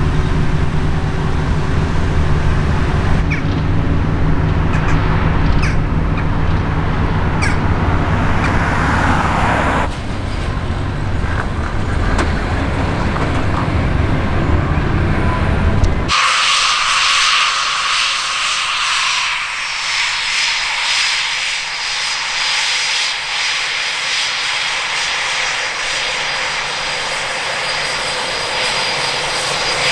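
A steady low rumble with a hum for about the first half. After an abrupt change about halfway, Eurofighter Typhoon jet engines run with a steady high whine over a rushing hiss.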